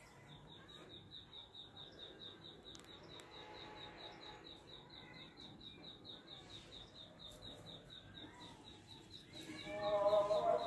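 Steady, rapid high-pitched chirping from a small animal, about five chirps a second at one unchanging pitch. A louder call comes in near the end.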